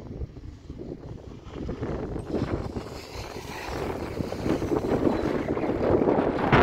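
Wind buffeting the microphone on a moving chairlift, a gusty rushing that swells steadily louder from about two seconds in.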